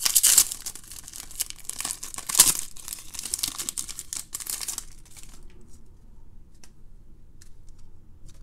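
Foil trading-card pack being torn open and crinkled in the hands, with sharp rips just after the start and about two and a half seconds in. After about five seconds the crinkling stops, leaving only faint light clicks.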